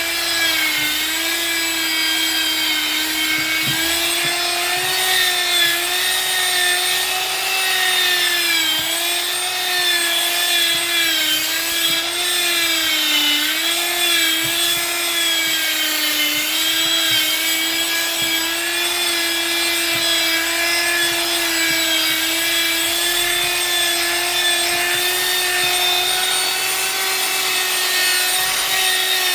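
Handheld electric power tool running against a wooden slice: a steady motor whine with a rubbing, rasping sound from the wood. The pitch dips slightly now and then as the tool takes load.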